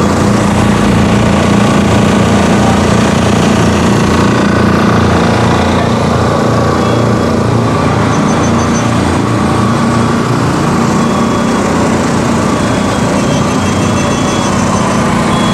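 An engine-driven machine running steadily at a constant speed, a loud, even hum with a low drone.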